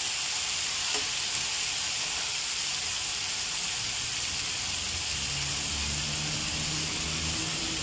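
Chicken fillets sizzling steadily as they sear in a hot cast-iron skillet, skin side crusting.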